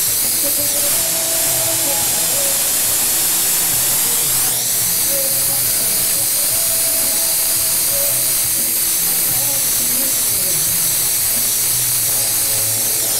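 Steady hiss of a glassblowing bench torch flame heating a borosilicate bong joint, with faint music playing underneath.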